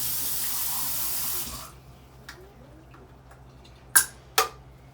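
Kitchen sink tap running in a steady stream, then shut off about a second and a half in. After a quiet stretch, two sharp clicks come close together near the end.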